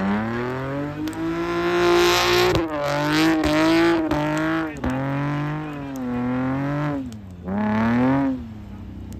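Car engine revving hard, its pitch climbing and dropping several times with a few sharp clicks in between. It gives one last rise and then falls back to a low rumble near the end.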